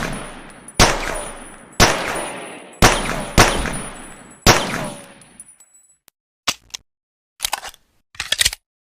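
Pocket pistol firing a string of single shots about a second apart, each with a long echoing tail. A few short clicks follow near the end.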